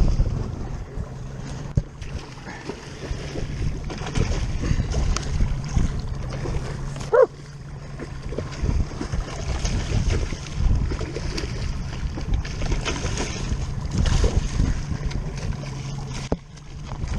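A boat engine running at low speed with a steady low hum, under wind and water noise and scattered knocks. A short rising squeak sounds about seven seconds in.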